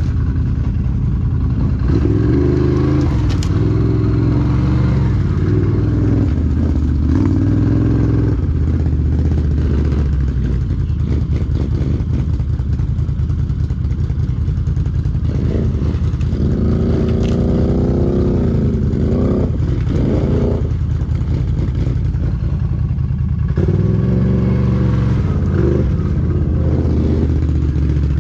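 ATV engine running and revving in a mud hole, its pitch rising and falling in repeated bursts of throttle, with a stretch of higher revving past the middle.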